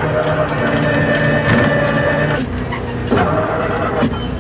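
Fishing boat's engine-driven deck winch running under load, hoisting a brail net full of fish. The steady drone eases off past the middle and picks up again with a knock shortly after.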